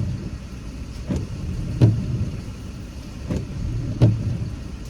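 Car windshield wipers running, a knock at each end of every sweep, in pairs about every two seconds, over the low hum of the car.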